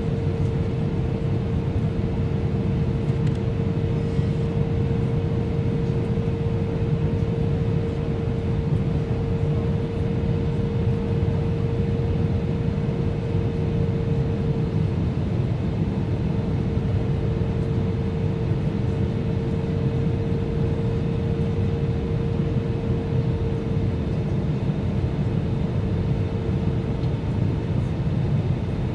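Steady cabin noise of an Airbus A320 airliner on descent: the even drone of its engines and the air rushing past the fuselage, with a steady hum running through it.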